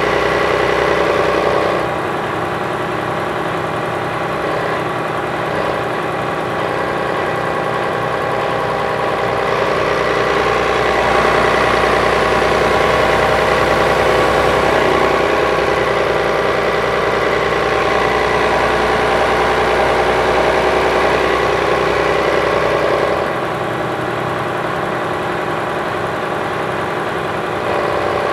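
Volvo B12B coach's DH12E 12-litre six-cylinder diesel idling steadily. Its level steps down about two seconds in, comes back up around the middle, and drops and rises again near the end.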